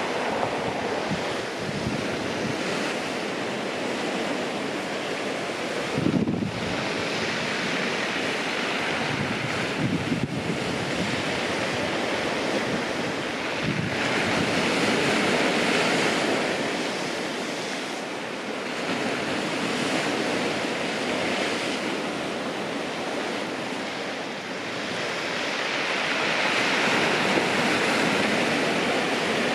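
Sea waves breaking and washing on a pebble beach, with wind buffeting the microphone. The surf swells louder twice, about halfway through and near the end.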